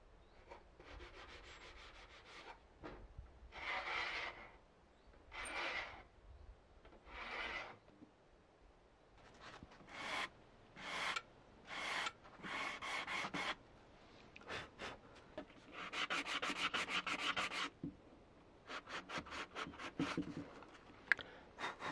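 Hand paint scraper dragged across an old wooden window frame, stripping old paint in a series of scratchy strokes of varying length with short pauses between.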